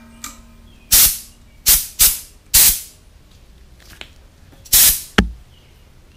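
Short bursts of compressed air hissing from a pressurised air tank's brass fittings, about five quick psst sounds that each die away in a fraction of a second, then a brief knock near the end.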